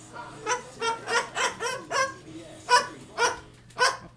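Baby cockatoo mimicking a dog's bark: a run of about nine short, sharp barks, the first six close together and the last three spaced about half a second apart.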